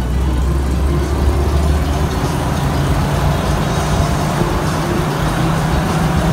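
Engine and road noise of an amphibious Duck tour vehicle, an original WWII-era DUKW, driving along a road: a loud, continuous drone mixed with wind rushing past the open sides. About two seconds in, the lowest engine note drops away and a slightly higher drone takes over.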